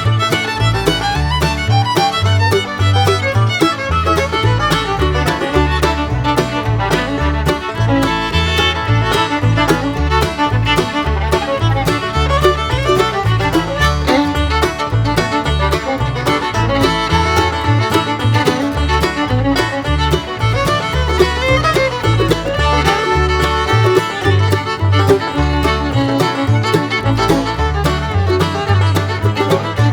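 Upbeat background music with fiddle and banjo in a country or bluegrass style, with a steady beat.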